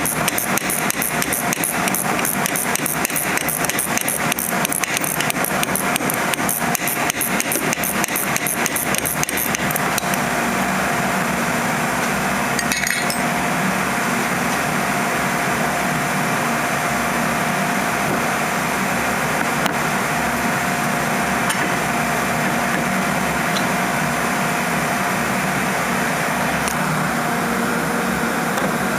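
Rapid metallic clicking of a wrench turning the 18 mm nut off a sway bar end link stud, stopping about ten seconds in. A steady hum runs underneath throughout.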